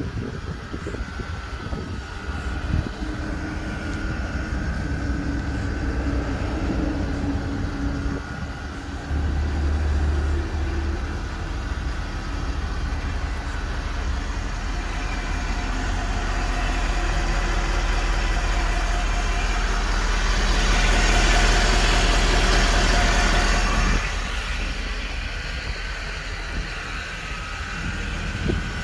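Vehicle engine idling steadily, with a louder rushing noise for a few seconds about twenty seconds in that cuts off suddenly.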